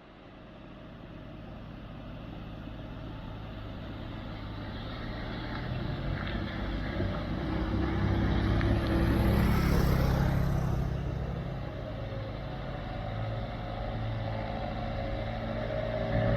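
Truck engine working hard up a steep incline, a deep steady drone that grows louder. About two-thirds through it peaks with a brief hiss, eases off, then builds again near the end.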